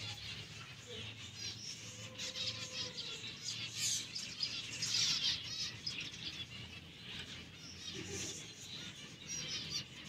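Pet parrots chattering in a dense run of rapid, high chirps, loudest a few seconds in.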